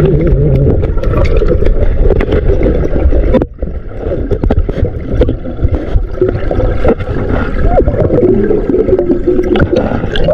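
Muffled underwater sound picked up by a submerged camera: a steady low rumble with gurgling, scattered clicks and wavering tones. The sound drops out for a moment about three and a half seconds in, then carries on.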